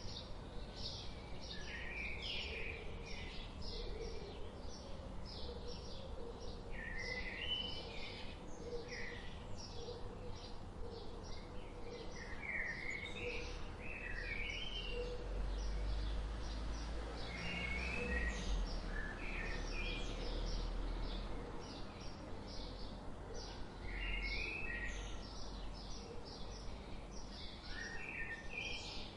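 Many birds chirping without a break: rapid short high chirps, with repeated lower warbling phrases every few seconds. A low rumble rises under them in the middle and fades again.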